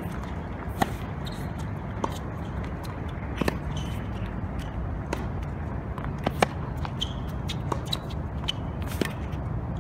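Tennis rally on a hard court: about seven sharp racket-on-ball strikes, one every second and a half or so, alternating louder and fainter as the ball goes between the near and far players, with footwork and brief shoe squeaks between shots.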